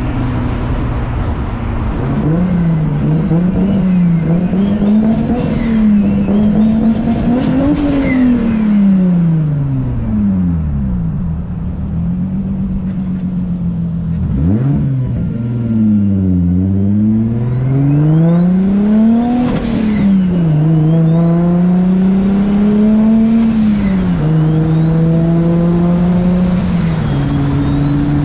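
Turbocharged RB25 inline-six with a GT3076 turbo being revved up and down repeatedly. In the second half a high turbo whistle climbs with each rev, and the TIAL blow-off valve vents as the revs fall.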